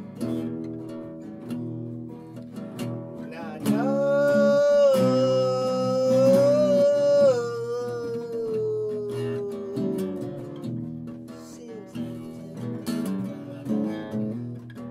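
Music: acoustic guitar strumming, with a long held lead note entering about four seconds in that slides slowly down in pitch and fades out after a few seconds.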